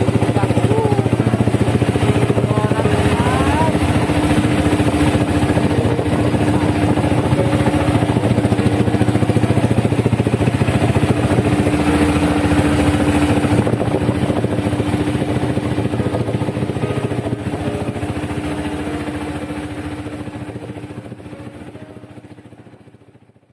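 A small boat's engine running steadily, a constant hum with rapid firing; it fades away over the last few seconds.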